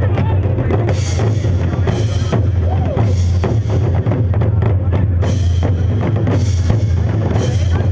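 Ensemble of large barrel-shaped war drums beaten together in a fast, dense rhythm over a deep, steady low boom, with a brighter accent about once a second.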